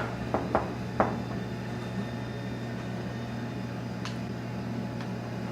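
Steady low hum of room tone, with three short sharp clicks or taps in the first second and a faint tick about four seconds in.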